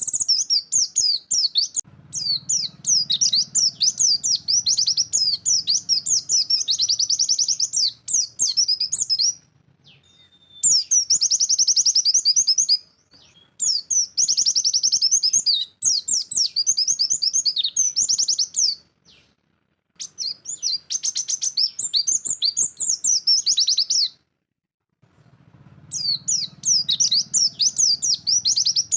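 White-eye (pleci) singing its fast, shooting 'nembak' song: long bursts of rapid, high twittering chirps, broken by a few short, abrupt silences.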